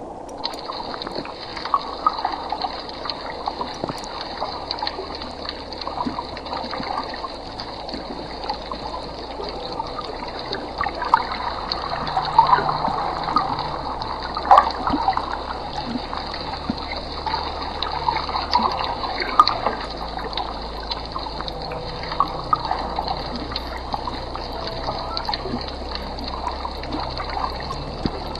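Aquarium water trickling and bubbling, with scattered small clicks and splashy bursts over a steady hiss.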